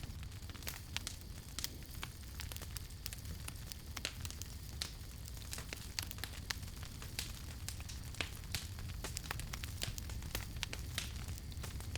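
Campfire crackling, with frequent irregular sharp pops and snaps of burning wood over a steady low rumble.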